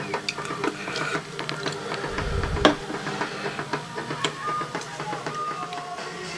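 Stage clatter of a band getting ready to play: scattered clicks and knocks with brief stray instrument notes, and one heavy thump with a sharp click about two and a half seconds in.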